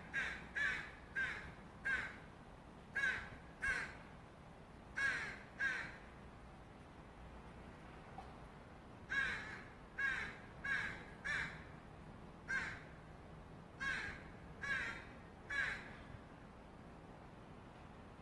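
Fledgling Northwestern crow giving repeated begging calls: about sixteen short calls in runs, with a pause of about three seconds midway.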